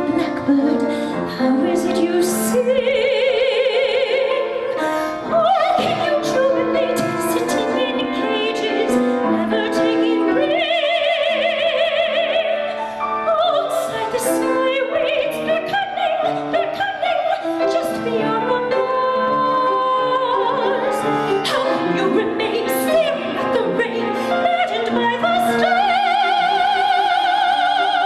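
A woman singing in a classical soprano voice with instrumental accompaniment, holding several long notes with a wide vibrato.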